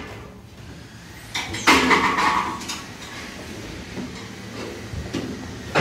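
Footsteps along the wall panels of a modular elevator hoistway lying on its side: uneven thuds that rattle the steel frame, the heaviest pair about a second and a half in, lighter steps after.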